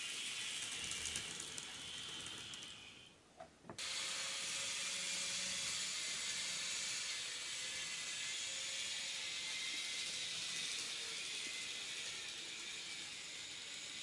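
N gauge model trains running on the layout track: a steady hiss of small motors and wheels, with fine clicking at first. The sound dips briefly about three and a half seconds in, then comes back steady.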